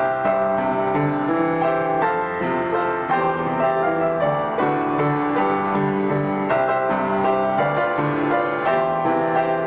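Piano playing a slow instrumental piece, with sustained notes and chords that move steadily.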